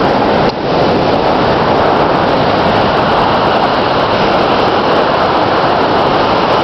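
Loud, steady rush of Bow River floodwater pouring through the open floodgates of Bearspaw Dam at flood flow, with one very brief dip about half a second in.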